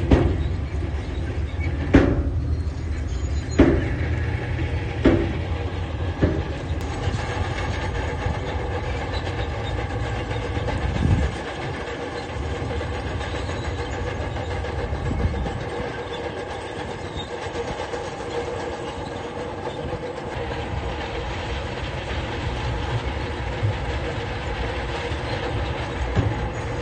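Crawler bulldozer working: its diesel engine runs steadily while the steel tracks clank, with several sharp metallic knocks in the first six seconds. The deep rumble eases off about eleven seconds in.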